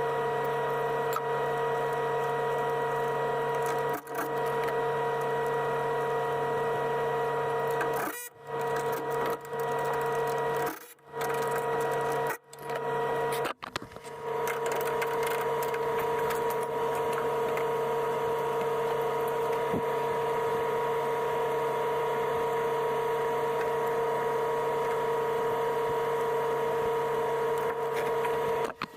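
A motor running at a steady pitch with a constant whine, cut off abruptly several times and resuming at the same pitch.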